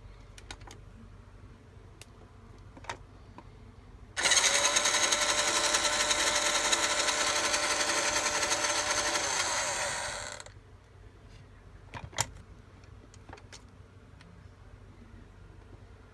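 M2400 toy motorcycle's small battery motor running with a buzzing whir and gear rattle for about six seconds, then slowing down and stopping. A few faint clicks come before and after.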